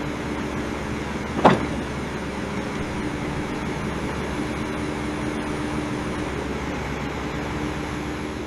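A motor vehicle or machine engine running steadily, with a short sharp sound about a second and a half in.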